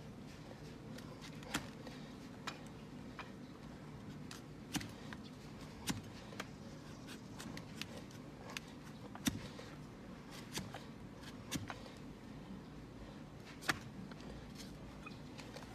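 A broad flat hoof knife cutting and shaving a donkey's hoof horn: about a dozen sharp cuts, irregularly spaced, roughly one a second, over a low steady hum.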